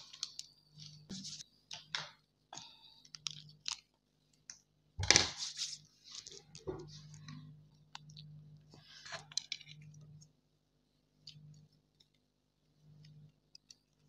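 Plastic ramen sauce sachets being snipped open with scissors and squeezed out, a run of small crinkles and clicks, with a louder crinkle about five seconds in and another around nine seconds.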